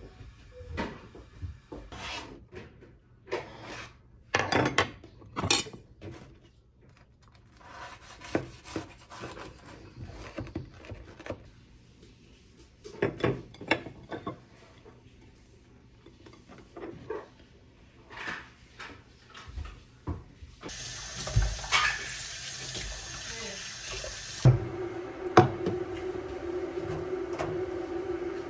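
Clinks and knocks of plates and a frying pan being handled, then a kitchen tap running into a stainless steel sink from about two-thirds of the way in, its sound taking on a steady low note near the end.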